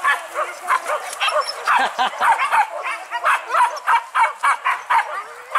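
Hunting dogs on a wild boar hunt, yelping and barking in quick, high-pitched calls, three or four a second.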